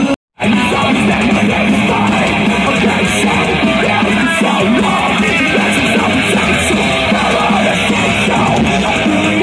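Live rock band playing loudly from a festival stage, led by guitars, as picked up by a phone in the crowd. The sound cuts out for a split second just after the start, then the music carries on.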